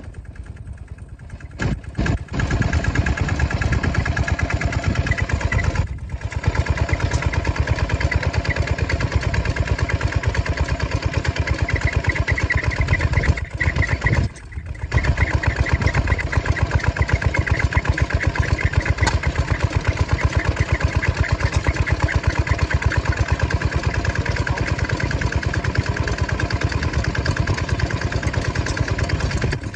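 Small Kubota diesel engine running with a fast, even beat as a donkey engine, belt-driving a hard-to-start Amanco hit-and-miss engine to turn it over. The sound steps up about two seconds in and cuts out briefly twice, near six seconds and again around fourteen seconds.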